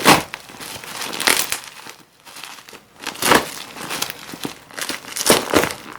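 Bubble wrap and plastic packaging crinkling and rustling as it is handled and pulled apart, in irregular loud bursts with a brief lull about two seconds in.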